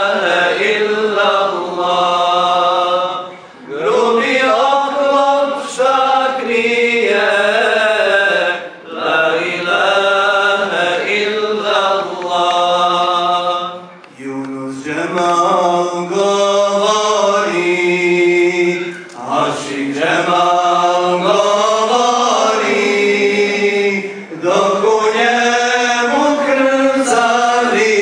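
A group of men singing an Islamic devotional chant together, in long held phrases of about five seconds with brief pauses for breath between them.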